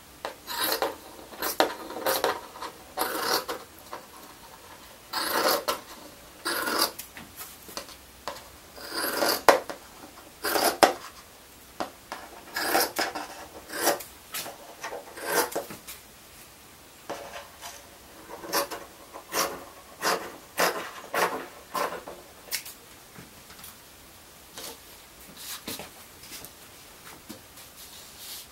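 Scissors cutting fiberglass cloth: a series of short, uneven snips in runs with brief pauses, as the cloth is trimmed to fit a surfboard for a laminated patch.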